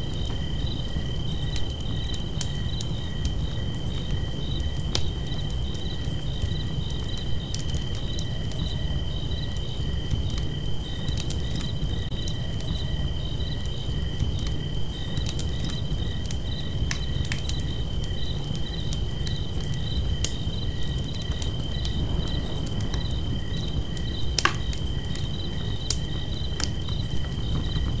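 Campfire crackling, with scattered sharp pops over a low steady rumble, one louder pop near the end. Crickets chirp alongside: one unbroken high trill and a second chirp pulsing a few times a second.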